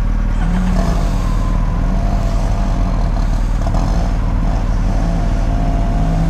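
BMW R1250GS boxer-twin engine idling steadily, its pitch wavering slightly, with a thin steady whine above it.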